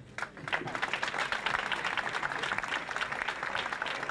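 Crowd applauding: a few scattered claps at first, filling out into steady applause within the first second.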